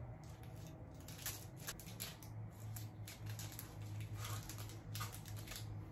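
Aluminium foil crinkling in short, irregular crackles as foil wraps are handled and pulled at on the fingertips, where they hold acetone-soaked cotton to dissolve gel nail polish. A low steady hum runs underneath.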